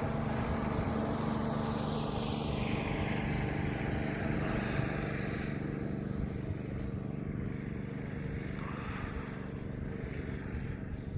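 Truck engine running with a steady hum, and a rushing sound that falls in pitch over the first several seconds.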